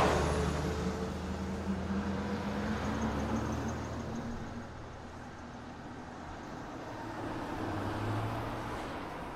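A road vehicle's engine running as a steady low drone over street traffic noise. It is loudest at first and eases off over the first few seconds.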